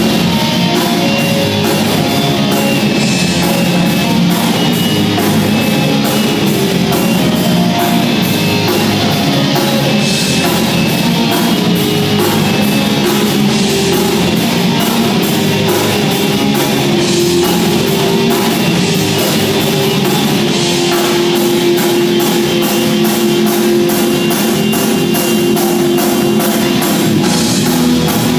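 Live rock band playing loud and steady: electric guitars, bass, drum kit and keyboard.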